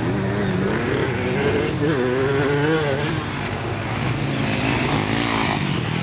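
Dirt bike engine running as it is ridden toward the camera, its pitch rising and falling with the throttle, most markedly about two to three seconds in.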